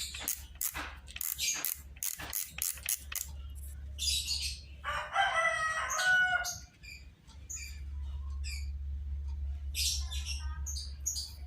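Birds chirping in short high calls, with one longer call lasting about a second and a half in the middle, over a steady low hum; a quick run of sharp clicks fills the first few seconds.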